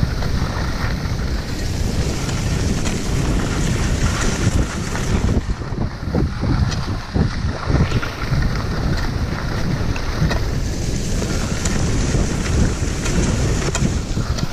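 Wind buffeting an action camera's microphone during a downhill ski run, a loud continuous rush heaviest in the low end, with skis hissing and scraping over the snow.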